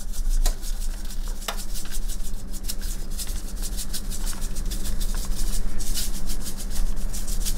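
Hand salt grinder being twisted to grind seasoning salt: a continuous rasping run of rapid fine clicks.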